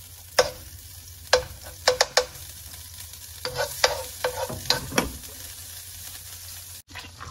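Butter sizzling as it melts in hot oil in a nonstick wok, while a metal spoon scrapes and knocks against the pan about a dozen times.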